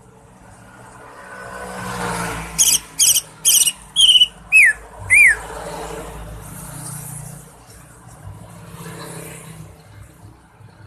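Cucak ijo (green leafbird) giving a quick run of six or seven loud, sharp whistled notes over about two and a half seconds, the last two sliding down in pitch. Behind it is a low rushing noise that swells and fades.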